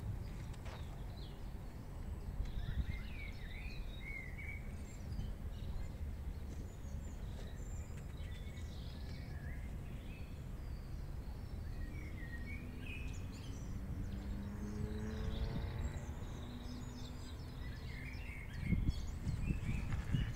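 Outdoor background: birds chirping now and then over a steady low rumble. A low humming tone rises and fades midway, and a louder low rumble comes near the end.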